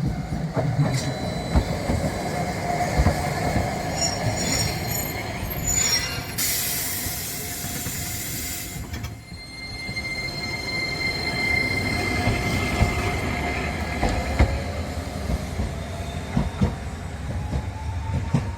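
Streetcar running on the rails with wheel squeal. A hiss lasting about two seconds comes about six seconds in, and in the last few seconds a motor whine rises steadily in pitch.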